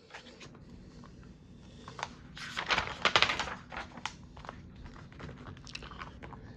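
Paper pages of a paperback picture book being turned and handled: crinkling rustles with a few small clicks, loudest about two to three and a half seconds in.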